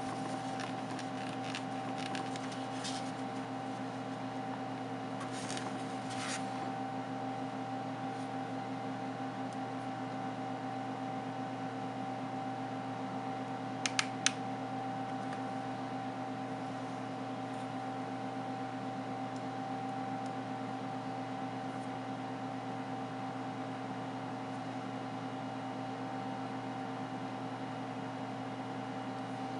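Steady fan-like hum with several held tones. Faint clicks come in the first few seconds, and two sharp clicks about fourteen seconds in as the phone with its glass screen protector is handled.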